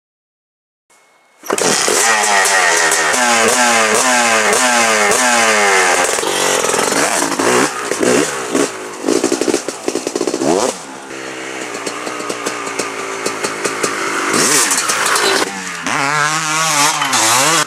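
Motocross dirt bike engine revving hard and climbing through the gears, its pitch rising and dropping again and again. Midway come choppy bursts of throttle, then a steadier run, and near the end the revs dip and climb again.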